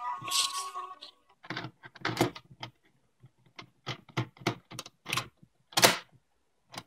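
A series of sharp plastic clicks and clunks from a 1992 Mani Casette Boy cassette walkman being handled: its cassette door is worked open and shut around the tape, with the loudest snap near the end.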